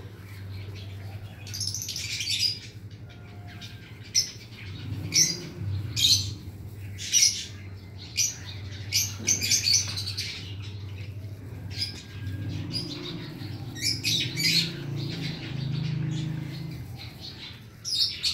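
Lovebirds chirping and screeching in short, sharp bursts, repeated every second or two.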